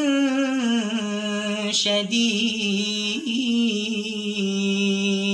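A man reciting the Quran in melodic tajweed style, drawing out one long vowel. His note slides slowly down in pitch with small turns, then holds steady on one low tone near the end.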